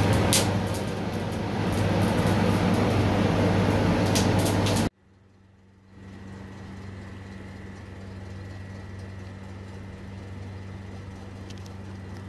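A loud, steady mechanical drone with a low electrical hum and a few sharp clicks, heard over a charcoal grill. It cuts off abruptly about five seconds in, giving way to a much quieter steady hum with a faint high whine.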